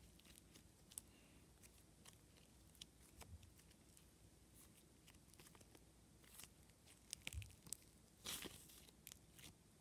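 Slime being squeezed and stretched by hand, making quiet sticky clicks and crackles, with a louder burst of crackling about eight seconds in.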